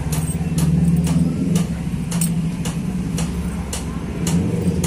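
A motor humming steadily and low, with sharp ticks about twice a second.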